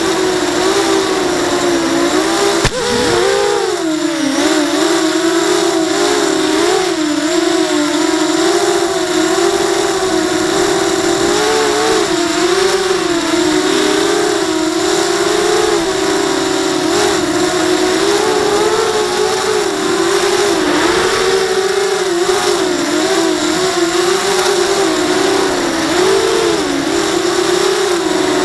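ZMR250 racing quadcopter's four DYS BE1806 2300KV brushless motors spinning 5-inch bullnose props. They run as a loud, steady buzzing whine whose pitch wavers up and down constantly with the throttle. About three seconds in there is a sharp click, and the pitch dips briefly before climbing again.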